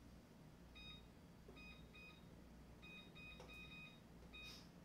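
Faint short electronic beeps from a kitchen appliance's keypad, about eight in an irregular run, as buttons are pressed to set a 16-minute cooking timer.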